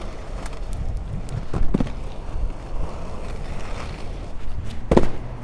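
Adapt HyperSkate GTO inline skate wheels rolling over asphalt: a steady low rumble with wind on the microphone. A couple of sharp clicks come about a second and a half in, and a louder knock near the end.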